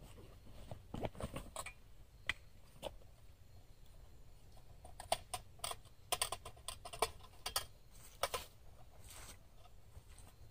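Irregular light clicks and rustles of camp gear being handled, bunched about a second in and again from about five to eight and a half seconds.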